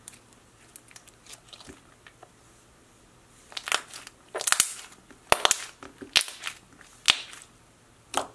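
Thick pink glue-all slime being stretched, folded and pressed by hands, giving sticky pops and crackling clicks. A few faint clicks at first, then a run of louder pops from about halfway through.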